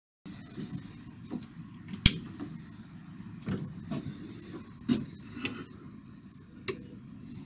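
Handling noise from a handheld camera moving through a small wooden shed: a steady low rumble with a series of knocks and clicks, the sharpest about two seconds in.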